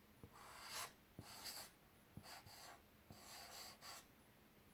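Faint handwriting: a run of short scratching strokes of a pen on a writing surface as letters are written out, with small ticks between them.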